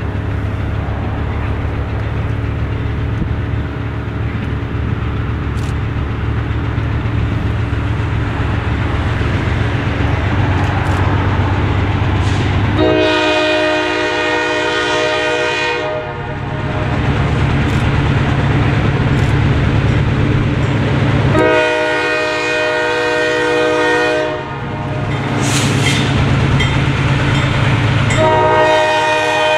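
Freight train led by a GE B23-7 diesel locomotive approaching, its diesel engines running with a steady low drone. The lead locomotive's multi-chime air horn sounds two long blasts, each about three seconds, and starts a third near the end.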